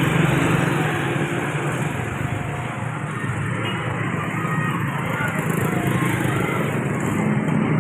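Road traffic: vehicle engines running with a steady low hum, easing off in the middle and growing louder again near the end.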